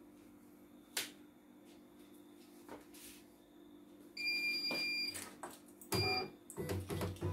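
CNY E900 computerized embroidery machine switching on: a click about a second in, then a steady high electronic beep lasting about a second as its display lights, and a second, shorter beep a little later, over a faint steady hum.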